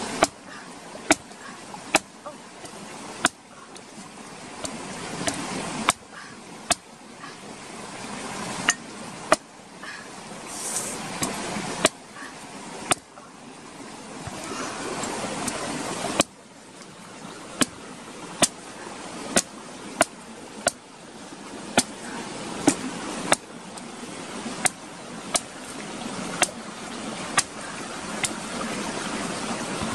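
Machete chopping into the thick husk of a green coconut: a long run of sharp, irregular chops, about one a second, coming quicker in the second half.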